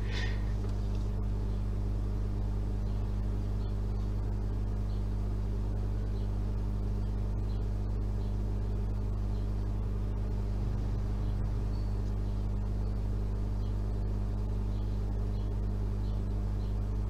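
A steady low hum with no distinct knocks or other events, unchanging in level throughout.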